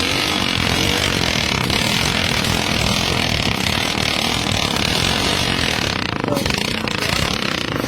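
Motorcycle engine running steadily with a fast, even exhaust beat.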